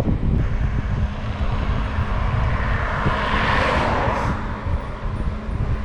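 Wind rumbling on the microphone of a camera on a moving bicycle, with a rushing hiss that swells and fades in the middle.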